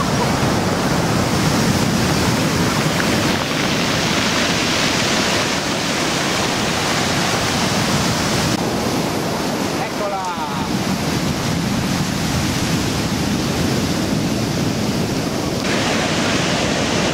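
Sea surf washing and breaking on the beach in a steady, loud rush, with wind on the microphone. The sound changes abruptly in brightness a few times, and a faint brief pitched sound comes about ten seconds in.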